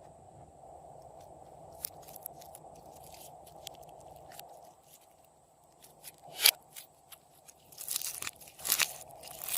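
Slime being worked by hand, giving scattered crackles and clicks, one sharp pop about six and a half seconds in, and a run of louder crunching near the end.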